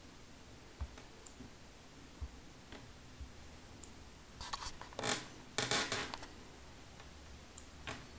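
Handling noise: a few faint taps, then a cluster of short scraping, rustling bursts about four and a half to six seconds in.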